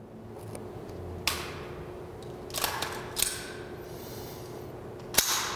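Metal clicks and clacks of an unloaded M4/M16 rifle's action being worked during immediate action: the charging handle pulled back and released and the bolt going forward. A sharp click comes about a second in, a cluster of scraping clacks in the middle, and a sharper clack near the end.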